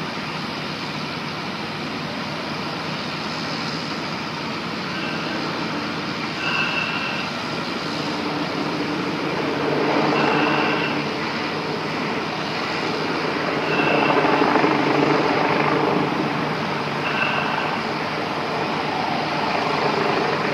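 Crawler crane's engine running steadily, swelling louder twice as it works the lift, with short high beeps sounding every few seconds.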